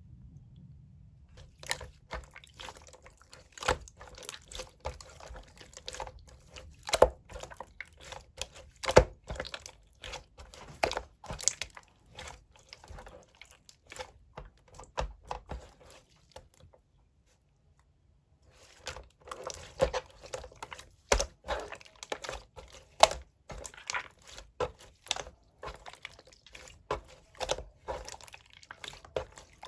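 Pink clear slime worked by hand, giving dense, irregular sticky clicks and small pops, with a pause of a second or two just past the middle.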